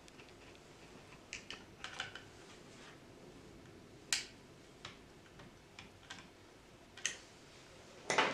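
Scattered small clicks and taps of an M3 screw, nut and metal extruder bracket being handled by hand as the nut is fitted onto the back of the screw. The clicks come irregularly, a few at a time, with the sharpest about four seconds in and another just before the end.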